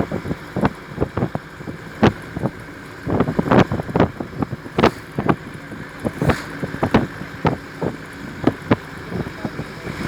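Narrow-gauge toy train running, a steady rumble broken by frequent irregular knocks and clatter, with wind buffeting the microphone.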